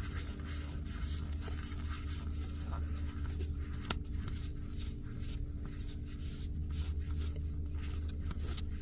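Weiss Schwarz trading cards being slid and flicked one past another in the hands, soft scraping and small clicks, over a steady low hum.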